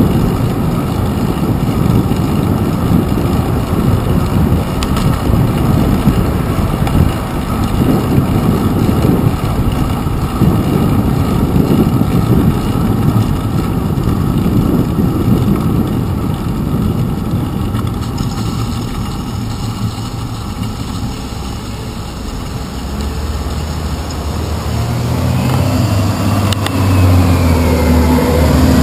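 Wind and road noise from a bicycle riding on wet pavement, buffeting a handlebar-mounted action camera's microphone. In the last few seconds a bus engine comes in close, a low steady hum growing louder.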